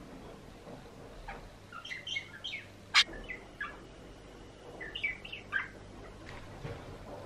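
Budgerigar chirping in two bouts of quick, short twittering calls, with one sharp click about three seconds in, the loudest sound.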